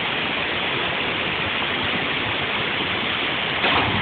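Steady rush of flowing water, with a brief louder burst near the end.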